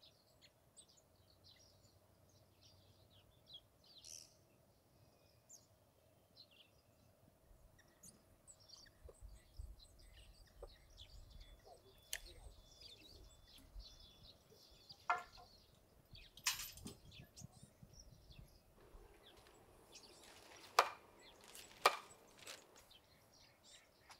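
Quiet outdoor ambience with scattered short, high bird chirps. In the second half come a few sharp knocks and clicks, two of them close together near the end.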